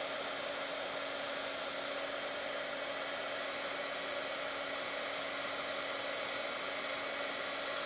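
Handheld embossing heat tool blowing hot air steadily onto a small paper piece held in tweezers, its fan noise carrying a thin, steady high whine.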